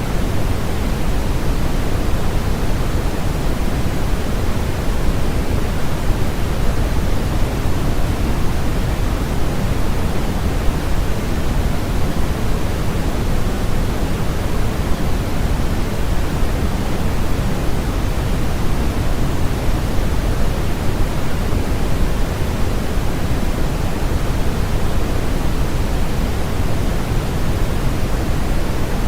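Steady, unchanging electronic noise of a sleep-aid white-noise track, fuller in the bass and softer in the treble, like pink noise.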